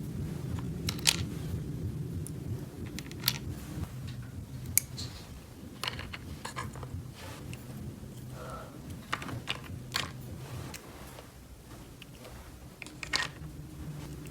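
Small plastic toy pieces being handled and set down, giving a scattered run of light clicks and taps over a low steady hum.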